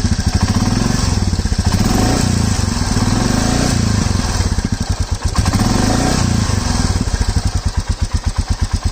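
Royal Enfield Meteor 350's single-cylinder engine idling with a tick-tick-tick tappet noise from the valve train, its speed rising briefly twice. The owner takes this tappet noise to be normal up to a permissible limit.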